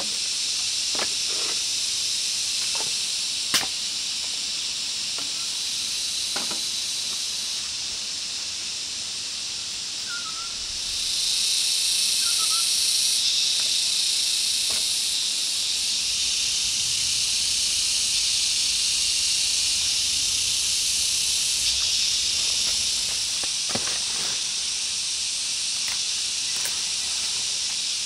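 Steady high-pitched chorus of insects, growing louder about eleven seconds in, with a few light knocks now and then.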